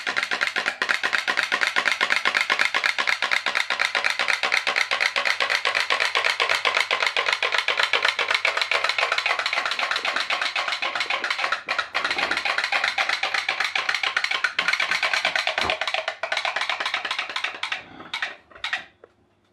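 Pop-pop boat's candle-heated aluminium-can steam boiler popping rapidly and loudly, a steady rattling putt-putt as steam pulses in and out of its tubes: the boiler is running strongly. It dies away near the end with a few last pops.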